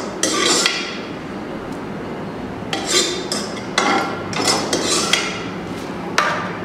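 Metal spoon scraping and clinking against a steel cooking pot and a steel bowl as cooked vermicelli is scooped out and served: a run of irregular sharp clinks and short scrapes.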